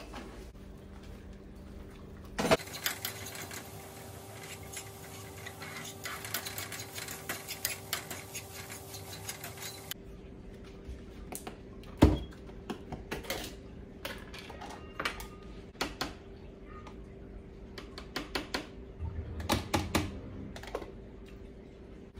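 Kitchen clatter while cooking and plating food: dishes, a pan and utensils clinking and knocking on a countertop and stove, with a denser stretch of clicking and hiss early on and one sharp knock about twelve seconds in.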